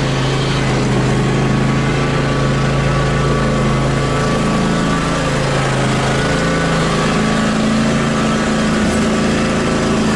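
John Deere X350 lawn tractor engine running steadily at full throttle as the tractor backs up, its pitch wavering slightly partway through.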